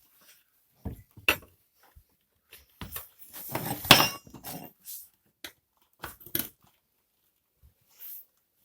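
Metal tire levers clicking, knocking and scraping against the motorcycle wheel rim as the last section of the tire bead is forced over it. Scattered sharp clicks, with a longer clattering scrape a little past the middle.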